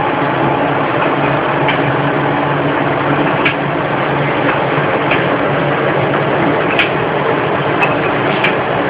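Steady mechanical hum of running machinery, with a few light clicks, the sharpest about two-thirds of the way through.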